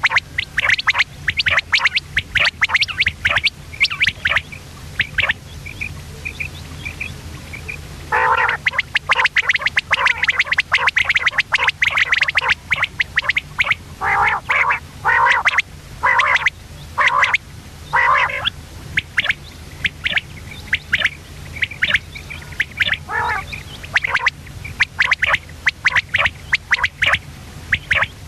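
Common quail calling over and over in rapid short notes, with a few softer chirps in between, over a steady low hum.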